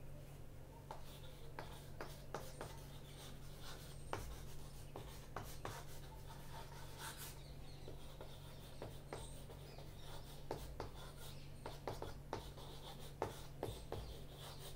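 Chalk on a chalkboard as words are written: many short taps and scratchy strokes at an uneven pace, over a faint steady low hum.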